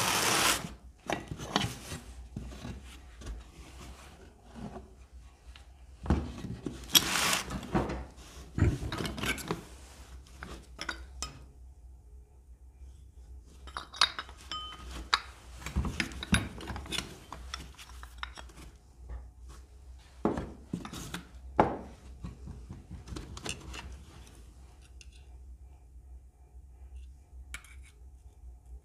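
Metal scooter transmission parts (clutch bell, clutch and torque-driver assemblies) clanking and scraping against each other and the cardboard box as gloved hands rummage through them and lift them out. The handling is irregular, with a few louder knocks.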